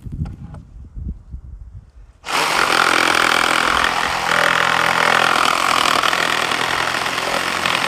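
Meterk 20V cordless reciprocating saw starting about two seconds in and running steadily as it saws through a log.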